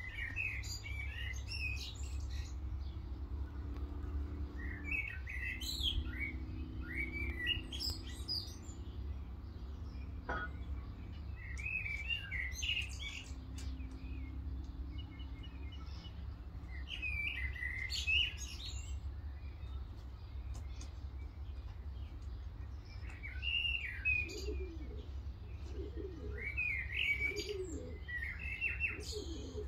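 Small songbirds chirping in short clusters of high notes, on and off. Lower cooing calls, from pigeons, come near the end, over a steady low rumble.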